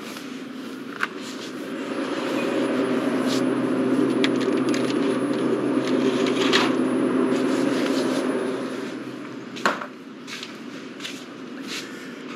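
A glass-door drink cooler opened with a click, its fans humming louder while the door stands open and a can is taken from the shelf with a few light clinks. The door shuts with a knock about three-quarters of the way through, and the hum drops back.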